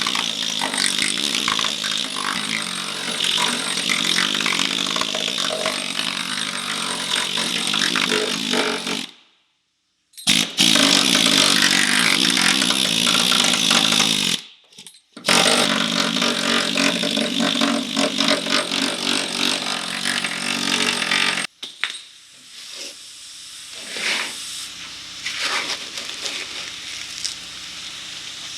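Handheld power tool grinding on car body sheet metal during rust repair. It runs steadily, breaks off twice briefly, and stops about three-quarters of the way through, leaving only quieter scattered sounds.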